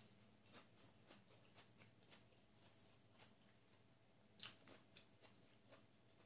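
Faint close-up eating sounds of a person chewing grilled chicken: a string of soft wet clicks and smacks, the loudest a little over four seconds in.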